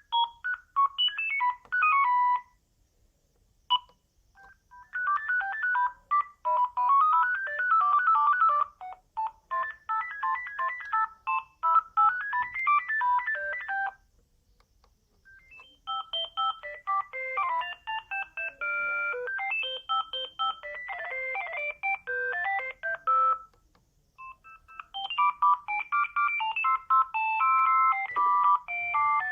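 Sagem myX-1 Trio mobile phone playing its ringtones: short electronic melodies of quick beeping notes, one tune after another, with pauses of a second or two between them.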